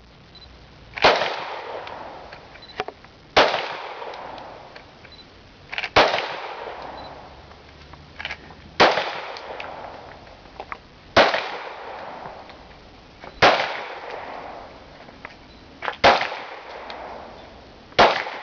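Glock 19 9 mm pistol fired in slow single shots, eight shots about two and a half seconds apart, each followed by a long echoing tail.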